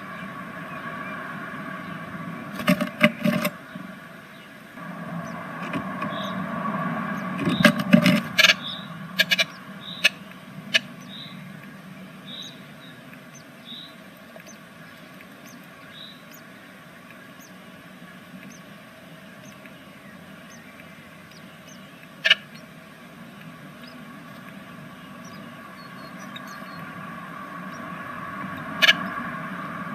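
Great tits in a nest box: bursts of sharp knocks and scratches as the birds move in the nest, and short high peeps about once a second for several seconds. Under them runs a steady hum, with a low rumble that swells and fades between about five and nine seconds in.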